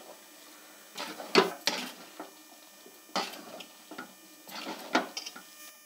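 A spoon stirring thick carrot halwa and dried fruit in a cooking pan, scraping against the pan in several short strokes with pauses between.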